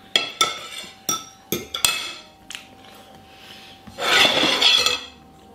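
Metal cutlery clinking and scraping on a ceramic plate: several sharp clinks over the first two and a half seconds. About four seconds in comes a scrape lasting about a second as the plate is slid across the worktop.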